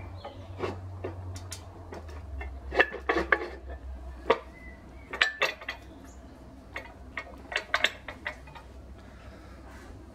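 A machined Acme nut knocking and clinking against the cast-iron vice body as it is shifted and seated by hand in its pocket: a series of short metallic clinks, some in quick clusters, over a low steady hum.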